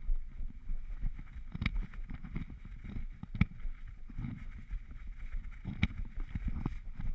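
A tracking dog moving through grass, heard through a camera on its harness: irregular low thuds of its footfalls and body movement, with three sharp knocks of the camera mount over a steady hiss.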